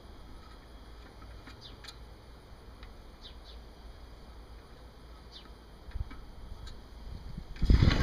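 Quiet outdoor background with a few faint, short bird chirps. Near the end, a loud burst of handling noise as the kerosene heater's metal fuel tank is picked up and turned over.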